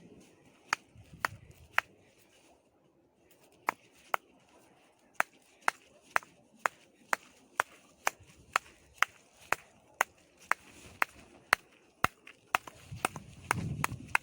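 Repeated sharp knocks as a frozen plastic water bottle is struck to break up the ice inside: a few scattered blows, then a steady beat of about two a second from about five seconds in. A low rumble joins near the end.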